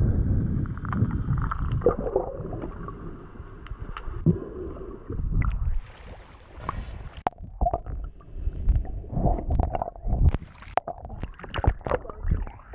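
Sea water sloshing and bubbling against a microphone that dips in and out of the water. It starts as a muffled underwater rumble with a brief open-air hiss about six seconds in, followed by a quick run of splashes and bubbling knocks.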